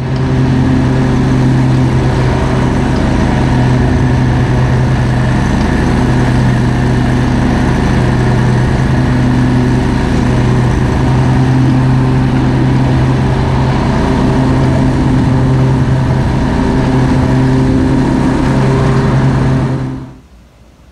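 Ferris commercial lawn mower's engine running steadily at mowing speed, a constant low hum with overtones; it cuts off suddenly near the end.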